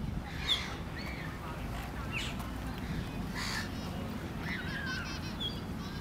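Silver gulls calling: a scattering of short, harsh cries, with a quick run of repeated notes near the end.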